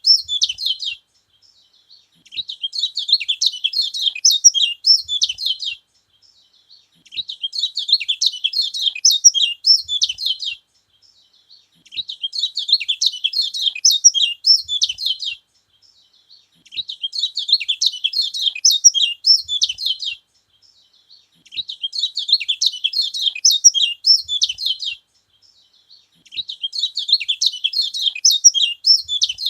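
Kecial kuning (yellow white-eye) singing: high, rapid twittering bouts a few seconds long, repeated at regular intervals with short pauses between them.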